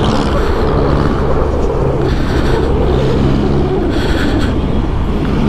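A Yamaha NMAX scooter ridden at road speed, its single-cylinder engine running steadily under heavy wind and road rumble.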